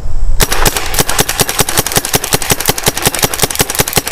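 Rap4 T68 paintball marker fed from its hopper, fired rapidly: a fast, even string of sharp pops that starts about half a second in. It is shooting smoothly.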